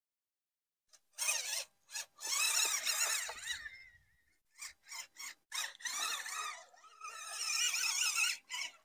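The brushed electric motor and geared drivetrain of a Traxxas TRX-4M RC mud truck whine in stop-start bursts as the throttle is worked, the pitch rising and falling, with splashing as the truck churns through muddy water. It starts about a second in.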